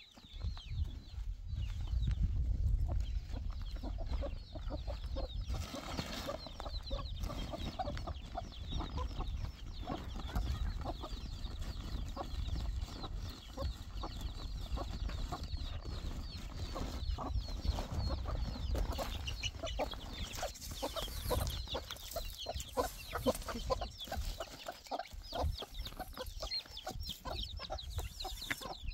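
Domestic hens clucking again and again, with a low rumble that is strongest in the first few seconds.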